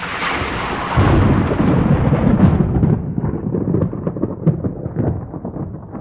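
Thunder: a sudden crash breaks into a loud rolling rumble about a second in, then slowly dies away with scattered crackles.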